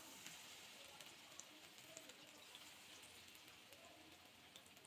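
Faint crackling and sizzling of battered bitter gourd rings deep-frying in hot oil.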